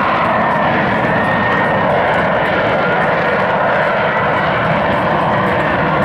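Lockheed Martin F-35 Lightning II's single F135 jet engine running loud and steady in flight, with a faint thin whine over the roar.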